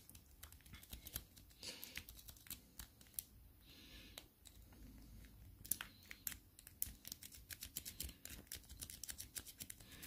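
Faint, rapid, irregular clicking of a Sparrows worm rake scraping over the pin tumblers in a Bell bicycle cable lock's tight keyway, held under light tension from a twisted L tension wrench while the lock is being raked. The clicks thin out briefly a few seconds in, then come thicker again.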